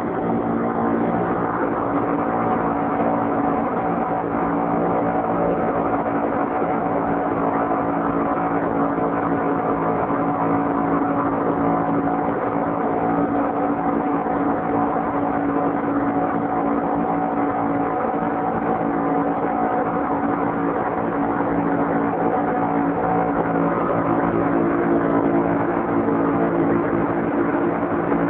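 Twin 75 hp outboard motors, one a Yamaha 75, driving a speed boat at steady cruising speed, below full throttle. The engine hum stays even throughout.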